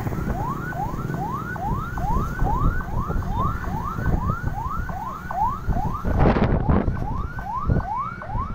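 Electronic siren on a fast yelp: a rising wail repeating about two to three times a second, over heavy wind rumble on the microphone, with a louder rush of wind about six seconds in.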